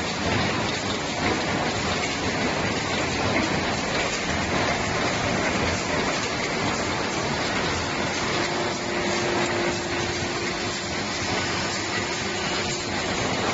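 Can lid production line machinery running on a factory floor: a dense, steady mechanical din. A steady tone joins about eight and a half seconds in.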